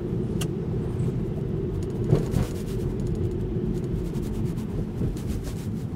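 Cabin noise inside a Tesla Model 3 driving on a wet street in the rain: a steady low road and tyre rumble, with a sharp click about half a second in and a louder thump just after two seconds.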